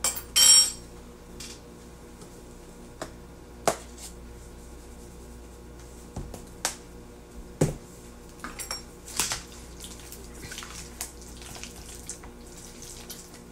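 A spoon clinking and scraping against a bowl while stirring potato salad: scattered sharp knocks and short swishes.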